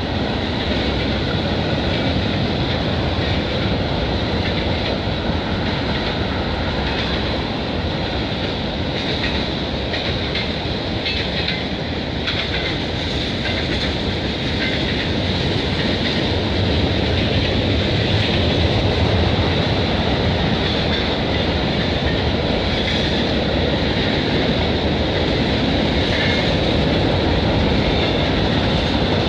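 Freight train cars rolling across a steel girder bridge: a steady, loud rumble and clickety-clack of wheels on the rails.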